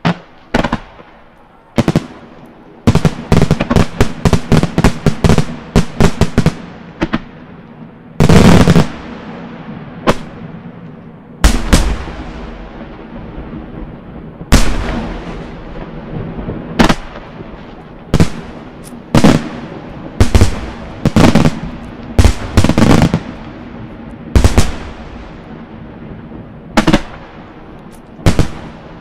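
Aerial firework shells bursting: a quick run of many bangs a few seconds in, then single loud booms every second or two, each trailing off in a long echo.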